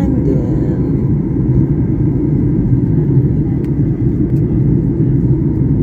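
Steady low rumble of a moving vehicle heard from inside its cabin.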